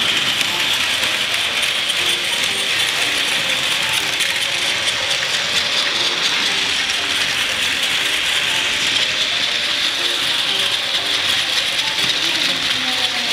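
Plarail battery-powered toy 100 Series Shinkansen trains running on blue plastic track: the steady whirring rattle of their small motors and gearboxes, with wheels clattering over the plastic rails.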